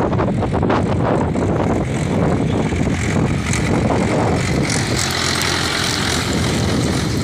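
Swaraj 843 XM tractor's three-cylinder diesel engine running steadily under load, heard close up, while it pulls a tine cultivator through dry soil.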